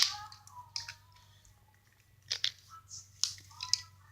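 Homemade glue-and-borax slime being squeezed and pulled by hand: a series of short, sharp wet clicks and snaps at irregular intervals.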